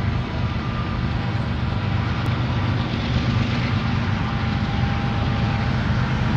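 Union Pacific diesel locomotives running as they haul a container train across a steel girder bridge: a steady, low engine drone.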